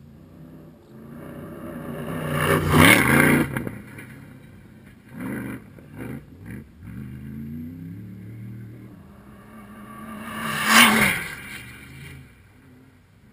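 Two Dakar rally cars pass at speed on a gravel track, the first about three seconds in and the second near eleven seconds. Each engine note rises as the car approaches and falls away as it goes past, with a few short rattles between the two passes.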